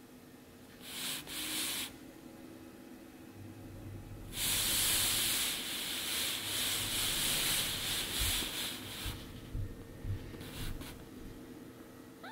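Fabric rustling and rubbing close to the microphone: a short burst about a second in, then a long stretch from about four seconds in to nine, with a few soft bumps near its end and brief rustles after.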